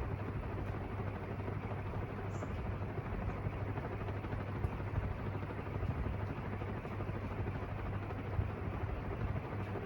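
Mistral ceiling fan, a rebranded Heller with a stamped steel motor and aluminium blades, running steadily on high speed: an even whoosh of air from the blades over a low motor hum.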